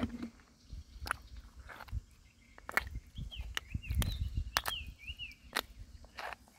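Footsteps and handling noises: scattered sharp clicks and knocks over low thuds. A bird chirps several times in the middle.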